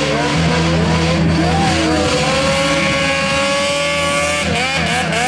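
Engines of off-road vehicles running and revving, with pitch glides as the throttle changes.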